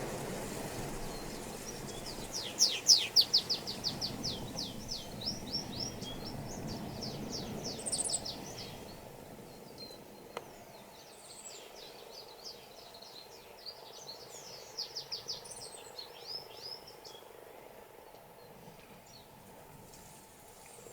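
Small songbird singing two long runs of rapid, high, down-slurred notes, the second starting after a short pause, over a low background rumble.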